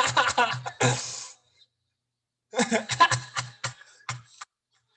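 A person's voice in short choppy bursts: about a second of it at the start, then again from about two and a half to four and a half seconds in, with a silent gap between.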